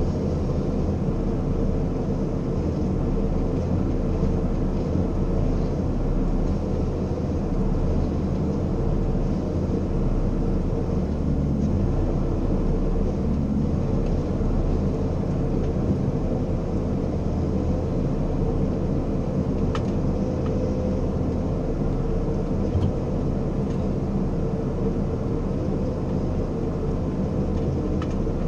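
Ponsse timber harvester's diesel engine and hydraulics running steadily, heard from inside the cab as a low drone with a steady hum. Two faint clicks come about two thirds of the way through.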